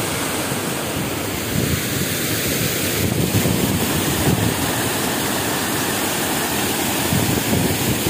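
Steady rushing of water pouring over a wide weir, with wind buffeting the microphone.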